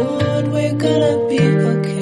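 Background music led by a plucked acoustic guitar, a new note or chord sounding every half second or so.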